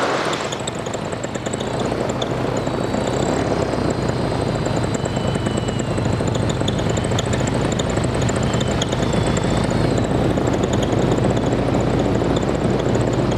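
A light aircraft's piston engine and propeller droning steadily in flight, with air rushing past. The sound swells a little over the first couple of seconds, then holds even.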